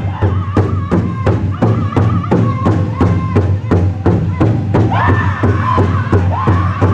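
Powwow drum group singing a jingle dress song: several singers strike a large shared powwow drum in a steady, even beat while singing together. About five seconds in, higher voices come in louder over the drum.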